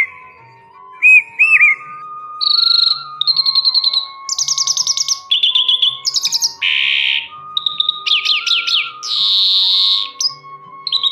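Songbirds singing: a couple of short whistled notes, then from about two seconds in a quick run of varied phrases of rapid chirps and buzzy trills, one after another. Soft background music with slow held notes plays underneath.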